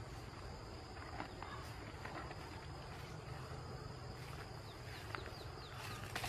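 Outdoor field ambience: a steady high-pitched insect drone, with scattered brief rustles of footsteps through tall grass and a quick run of short falling chirps near the end.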